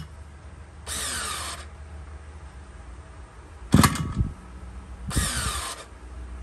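Electric starter motor of a Komatsu 2750 27cc two-stroke brush cutter whirring in two short bursts, each rising in pitch, with a loud sharp clack between them. The starter battery is running low.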